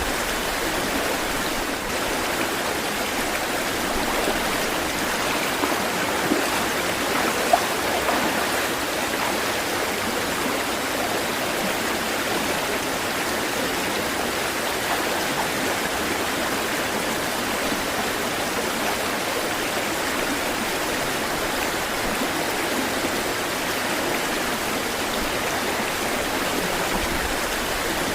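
Steady rush of flowing water, with a few brief louder splashes between about six and eight seconds in.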